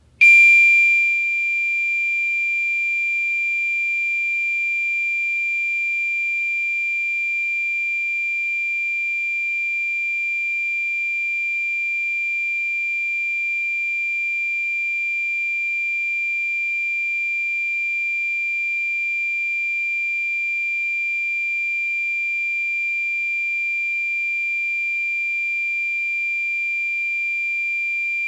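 Fire alarm sounding during a test: one steady, continuous high-pitched tone with no pulsing. It comes on at once, a little louder for its first second, then holds an even level.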